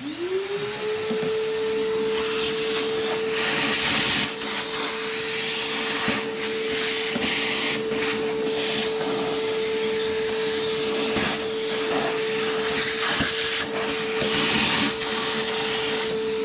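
Small vacuum cleaner switched on, its motor spinning up to a steady whine, cleaning up drilling debris around a freshly drilled hole, with scattered crackles as bits are sucked up.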